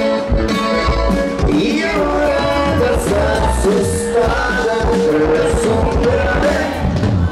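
Live norteño band playing, with men singing into the microphone and acoustic guitar in the mix; the vocal holds one long note through the middle of the passage.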